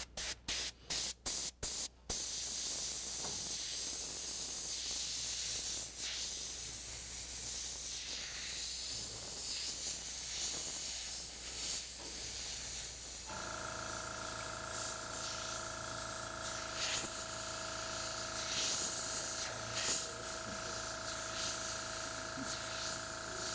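Airbrush spraying gold paint: a few short spurts of air hiss, about three a second, then a continuous hiss. A steady hum starts about 13 seconds in and keeps on under the hiss.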